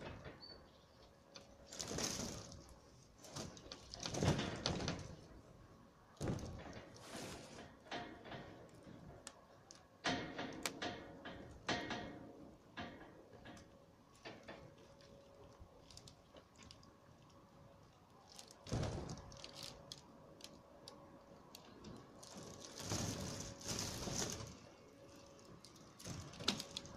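Old polycarbonate roofing sheets crackling, rustling and clicking in irregular bursts as they are pulled at and walked on. A faint steady hum runs underneath.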